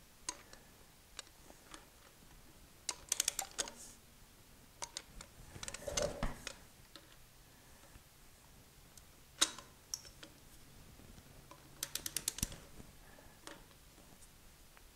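Click-type torque wrench ratcheting in short runs of rapid clicks as the stainless bolts of an Olds 455's oil filter housing are tightened to 35 foot-pounds, with a few single sharper clicks between the runs.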